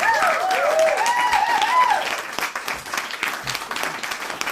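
Crowd applauding, with a few cheering whoops over the first two seconds.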